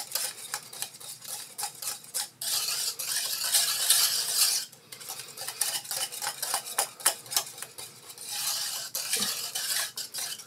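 Metal wire whisk beating thick pastry cream in a stainless steel saucepan: quick, irregular clicking and scraping of the whisk wires against the pan. It comes in two faster spells with a brief pause between them.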